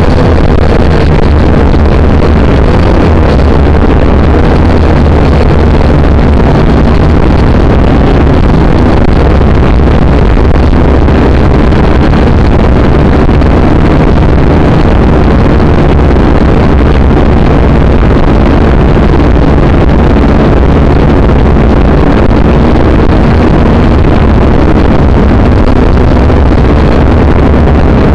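Syma toy quadcopter's small electric motors and propellers buzzing loudly and steadily in flight, recorded by the drone's own onboard camera.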